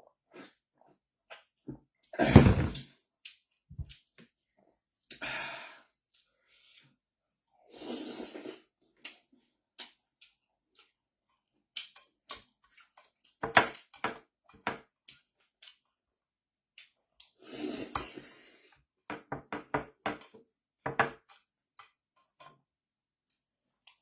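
Close-miked eating: chewing and mouth sounds, with scattered sharp clicks and a few short noisy bursts separated by silence.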